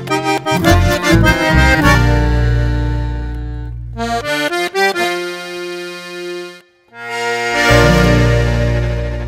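Hohner Club button accordion playing the close of a chamamé. A quick rhythmic run gives way to a held chord, a few short notes and a long held note. After a brief break, a final chord fades out.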